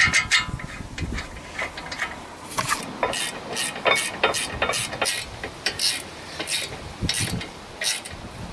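Socket ratchet clicking in a steady run of strokes, about three clicks a second, as a new brake caliper bolt is wound in.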